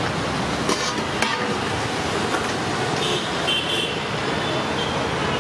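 Steady road traffic noise with a vehicle horn sounding briefly about three seconds in, and two sharp clicks about a second in.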